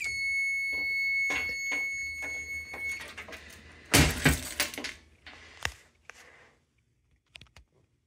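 Fire alarm control panel's built-in buzzer sounding one steady high beep for about three seconds as the panel is reset, then cutting off. About a second later comes a loud clunk as the panel's metal door is shut, then a smaller click.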